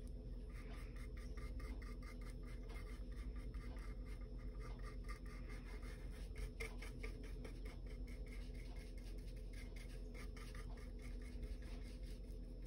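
Small paintbrush stroking acrylic paint onto a wood panel: a faint, rapid series of short brushing scratches.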